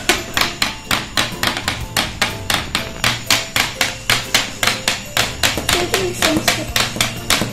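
Motorized robot hand kit running, its small battery motor and gears clicking rapidly and evenly, about four or five clicks a second, over a faint motor hum.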